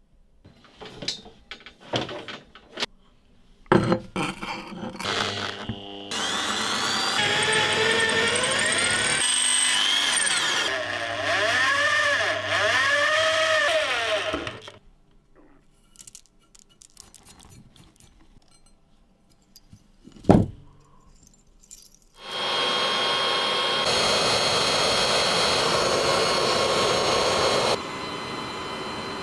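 Corded electric drill in a drill-press stand boring through the steel knife blade, its motor pitch sagging and recovering as the bit bites, then cutting off. Later a single sharp knock, then a steady rushing noise for about five seconds.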